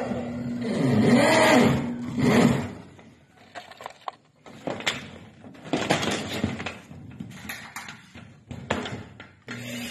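Corded electric drill driving a self-drilling tek screw into corrugated metal roofing sheet, its motor pitch rising and falling for about the first two and a half seconds. After that come scattered knocks and taps on the metal roof sheet, as from steps on the roof.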